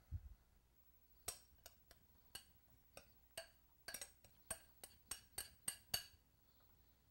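A spoon clinking against glass dishes while crumbly oat topping is spooned out and spread over apples: about a dozen light, irregular clinks over some five seconds.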